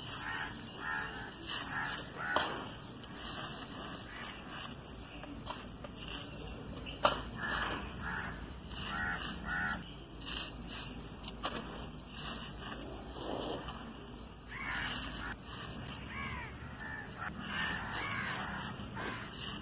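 Hand crushing and rubbing crumbly charcoal chunks and powder: dry crunching, crumbling and gritty rustling, with a sharp crack about seven seconds in. Birds call repeatedly in the background.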